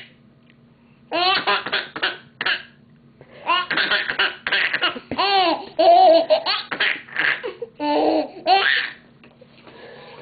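Baby laughing in several runs of short, squealing giggles, starting about a second in, with brief pauses, and stopping near the end.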